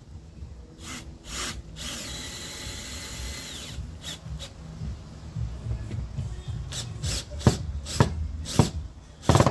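Cordless drill with a Phillips bit driving a screw into a plastic livewell vent, its motor whirring for about two seconds and dropping in pitch as it stops. Short scraping bursts come before it, and a row of sharp knocks from handling follows near the end.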